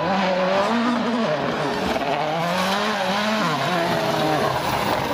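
Toyota rally car's turbocharged four-cylinder engine revving hard at speed on gravel, its note rising and falling several times as the driver works through the gears.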